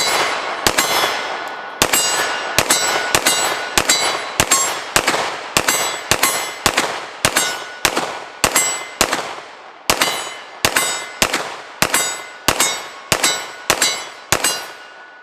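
9mm Glock 17 pistol fired in a steady string of more than twenty shots, roughly two a second, each crack followed by a ringing tail, stopping shortly before the end. The 33-round Korean extended magazine feeds the whole string without a stoppage.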